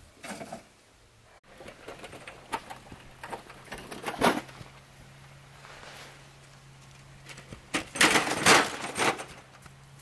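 Irregular knocks and clatters of hands-on work, with a louder clatter about four seconds in and a longer, louder scraping clatter near the end, over a faint steady hum.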